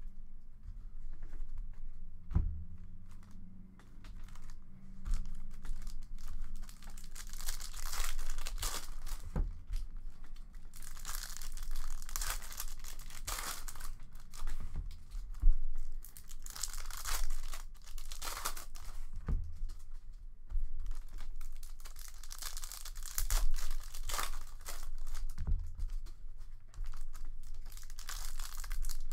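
Foil hockey card pack wrappers being torn open and crinkled by hand, one pack after another, in irregular rustling rips. A few dull knocks land here and there among the tearing.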